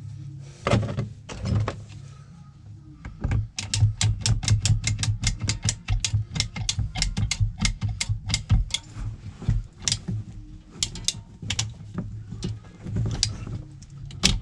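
PEX crimp tool ratcheting closed on a crimp ring: a fast run of sharp clicks, about five a second, for a few seconds, then slower scattered clicks. A steady low hum runs underneath.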